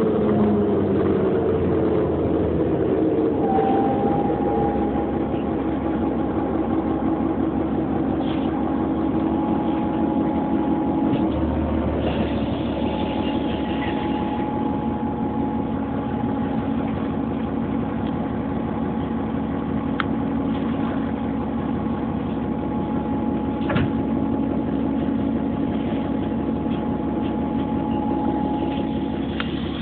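City bus engine heard from inside the cabin: its pitch falls as the bus slows at the start, then it idles steadily with a steady whine over it.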